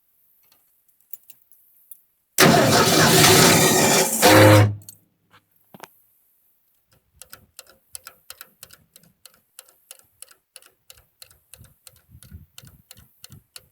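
A 302 V8 engine being cranked on the starter for about two and a half seconds without catching, the sign that it needs priming. A few seconds later comes a quick, regular, faint ticking.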